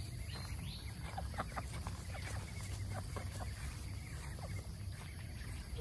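Domestic fowl making many short, soft clucking calls, scattered through, over a steady low rumble.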